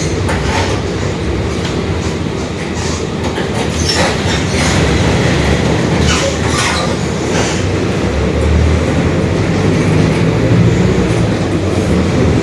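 Mercedes-Benz OF-1721 Bluetec 5 city bus running under way: a steady low diesel engine and drivetrain rumble with the differential growling. Loose rattles and clatter come and go, most in the middle, and the rumble grows a little louder toward the end.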